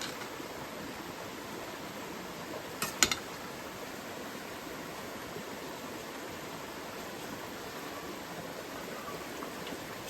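Steady rushing noise of water, with a quick cluster of sharp clicks about three seconds in.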